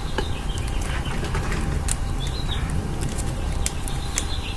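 Small birds chirping in short falling notes, with a run of chirps about halfway through, over a steady low rumble and a few light clicks.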